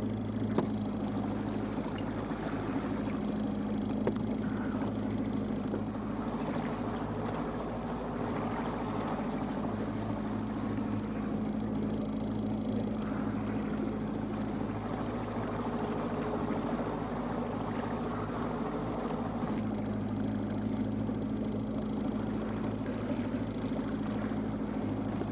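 Evinrude 115 outboard motor running steadily at slow trolling speed, an even low hum that holds the same pitch and level throughout.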